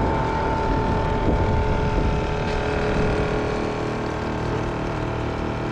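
An engine running steadily at an even speed, its tone holding level.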